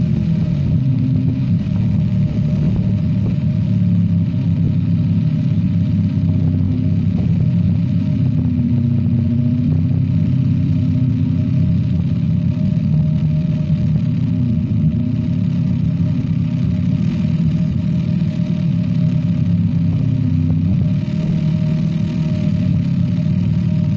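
Electric hammer drill boring into solid rock, a steady rapid hammering that holds without a break, with a portable generator's engine running underneath.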